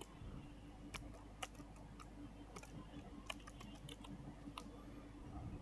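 Faint computer keyboard keystrokes: a handful of separate key presses spread out, typing a password at a login prompt.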